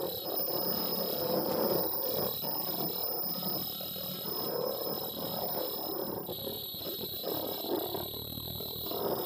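Tie-on flat mask welding machine with its mask conveyor running: an uneven mechanical clatter under a constant high-pitched whine, the whine changing pitch slightly about six seconds in.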